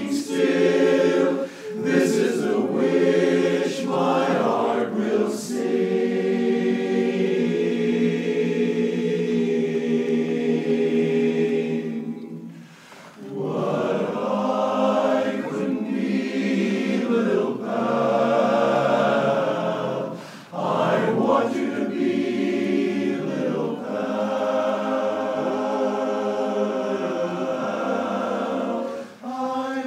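Men's barbershop chorus singing a cappella in close harmony, holding long chords with vibrato, with short breaks between phrases about twelve and twenty seconds in.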